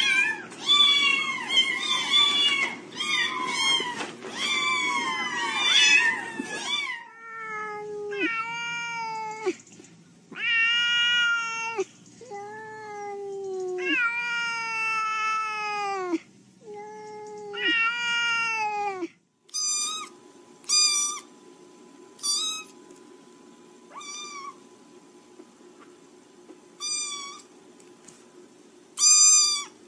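Domestic cats and kittens meowing. First several high-pitched mews overlap in quick succession, then comes a run of long, drawn-out meows. Near the end there are short meows spaced a second or two apart.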